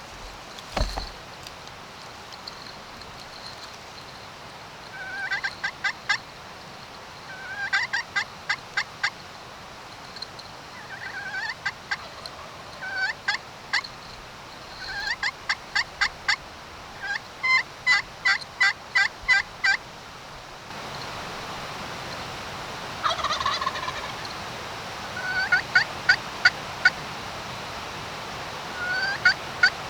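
Wild turkey tom gobbling over and over, each gobble a rising note breaking into a fast rattle, repeated every two or three seconds. A single knock comes about a second in.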